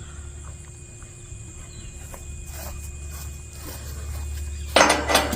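A steady low hum, then near the end a loud burst of metallic clattering and clicking from a tie-down strap's hook and ratchet being handled.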